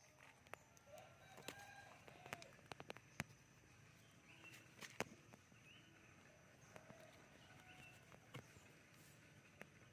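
Faint bird calls, short chirps and clucks, with scattered sharp clicks and taps over quiet outdoor background.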